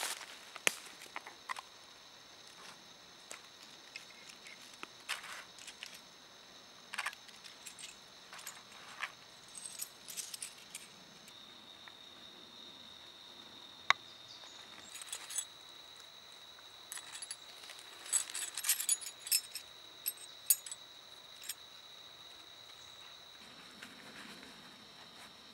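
Scattered light clinks and glassy tinkling of flint blades and flakes being handled, with a sharp click about 14 seconds in and small rustles between; a faint steady high-pitched tone runs under much of it.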